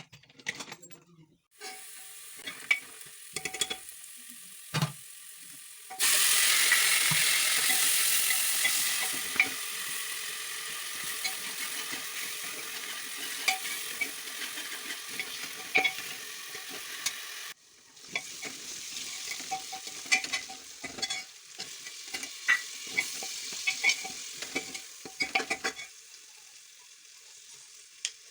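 Food frying in hot oil in a pan, stirred and scraped with a metal spoon that clinks against the pan. About six seconds in, a loud sizzle starts suddenly and slowly fades before it cuts off, as if something wet has gone into the hot oil.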